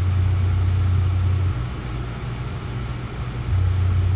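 Synthesized low sine-wave tone, looped by a repeat-infinite node: it sounds steadily, cuts off about a second and a half in, and comes back on near the end, in a repeating pattern of about two seconds on and two seconds off.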